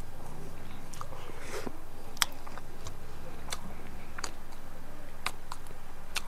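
A person eating chicken with his fingers close to a clip-on microphone: chewing and scattered sharp little clicks, the loudest about two seconds in, over a steady low hum.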